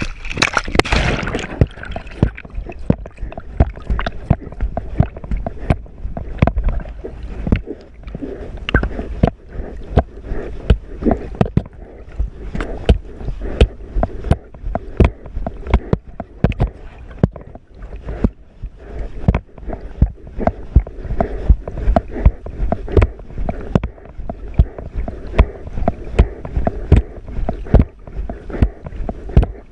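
Water splashing and sloshing heard through a submerged camera as a dog swims, with a loud splash about a second in. After that come irregular sharp knocks, about one or two a second, over a low watery rumble.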